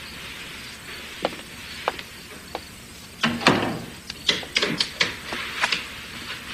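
Footsteps in a hallway: three separate steps, then a quicker run of sharp clicks and knocks from about halfway through, over a steady hiss.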